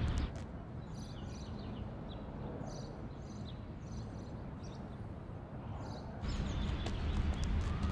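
Outdoor ambience: small birds chirping over a low, steady background rumble. The rumble jumps louder about six seconds in.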